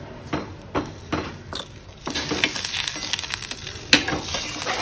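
Steel spoon against a steel kadai, mashing boiled potato pieces in a watery potato curry: a string of taps for about two seconds, then denser stirring through the liquid with a sharp clink near the end.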